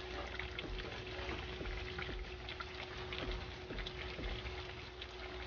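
Sticky honey and sweet chilli glaze bubbling in a saucepan around chicken wings, with many small irregular crackles and pops as a plastic spoon stirs the wings and lifts one out. A faint steady hum runs underneath.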